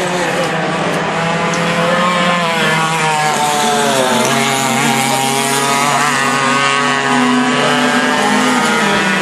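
Several racing kart engines running together, their pitches overlapping and rising and falling with the throttle.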